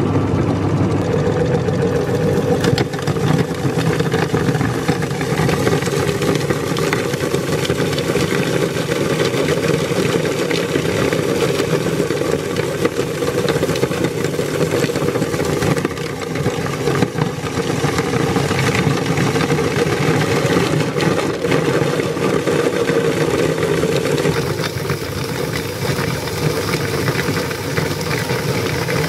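Belt-driven meat grinder running steadily, its auger crushing hard coated candies into crumbs with a loud, continuous crunching rattle.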